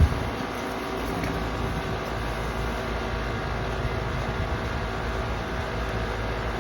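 Steady hum of running air-conditioning outdoor equipment, fans and compressors, with a short knock right at the start.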